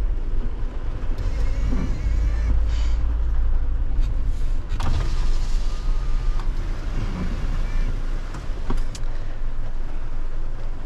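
Small refuse truck's diesel engine running as it drives slowly, heard from inside the cab, with a few knocks and rattles, the loudest about halfway through and two more near the end.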